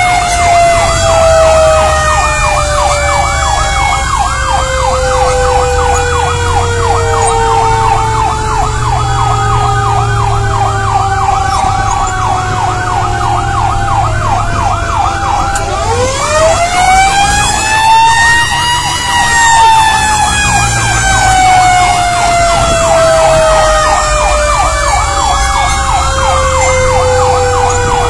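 Fire engine sirens sounding continuously. A wailing siren slowly falls in pitch, climbs again steeply about halfway through, then falls once more, over a fast warbling siren. The truck's engine runs underneath.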